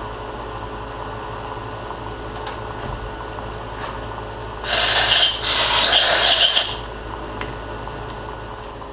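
Milling machine spindle running steadily with a drill bit, at its lowest speed of 80 rpm. About five seconds in, two loud hissing blasts of compressed air from a blow gun clear chips from the freshly drilled tap hole in the steel roller.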